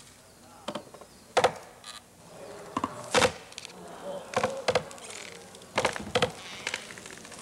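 Axe blows chopping into the trunk of a large standing hinoki (Japanese cypress): about nine sharp strikes at an uneven pace, coming roughly in pairs.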